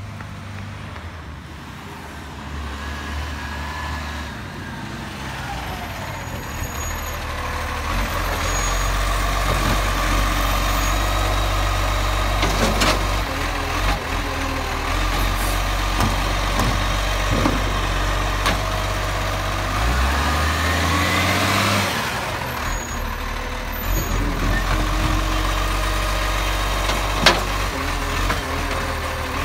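Side-loading garbage truck with a Bucher body, its diesel engine running as the hydraulic arm lifts a wheelie bin and tips it into the hopper. The engine hum grows louder over the first several seconds; about two-thirds of the way through the pitch rises into a whine, and a few sharp knocks of the bin and arm come through, the loudest near the end.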